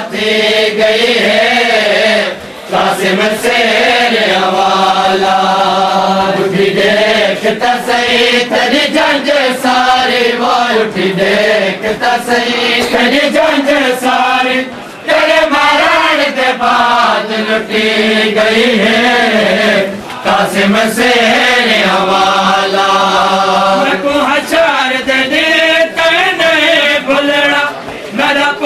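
Men chanting a noha, a Shia mourning lament, line by line with short breaks between lines, over the repeated slaps of hands beating on bare chests (matam).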